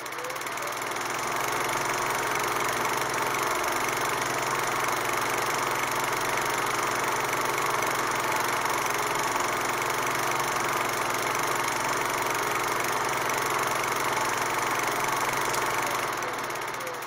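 Steady rushing hiss with a low hum underneath, fading in over the first second or two and fading out near the end.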